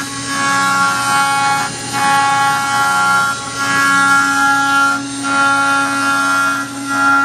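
Mini CNC milling machine cutting metal: a steady spindle-and-cut whine with several held tones, swelling and dipping about every 1.7 seconds as the tool moves back and forth through its passes.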